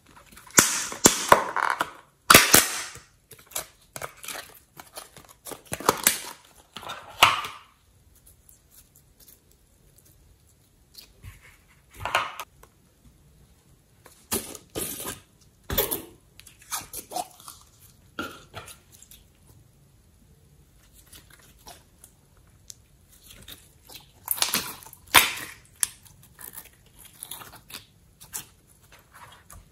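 Plastic slime tubs being handled and opened by hand, their lids clicking and snapping, with crackly squishing as the slime is lifted out and pressed between the fingers. The sounds come in irregular bursts with a few sharp clicks between quiet stretches.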